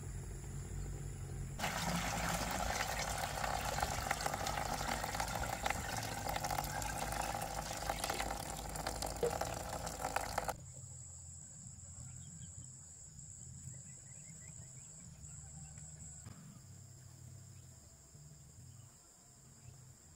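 Water running steadily for about nine seconds, starting and stopping abruptly, then only a faint background with a thin high steady tone.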